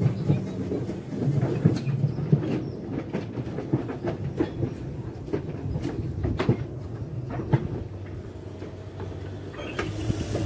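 Quarry Hunslet narrow-gauge steam locomotive running light at walking pace over jointed track: a low rumble with irregular clanks and clicks from the wheels and motion. A hiss of steam starts near the end as it draws close.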